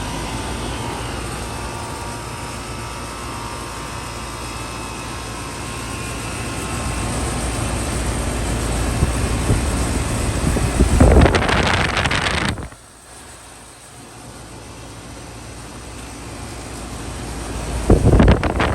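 Lennox Merit Series heat pump outdoor units running through a defrost cycle, with a steady machine noise and a low rumble that builds. Twice there is a loud rush of refrigerant as the reversing valve shifts: the first comes a little past halfway and cuts off suddenly, the second near the end.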